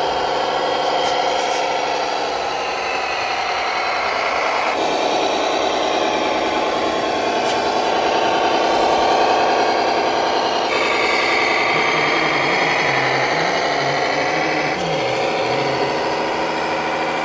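Radio-controlled model tractor running while towing a dump trailer over dirt: a steady mechanical drone made of several tones, whose pitch shifts abruptly a few times.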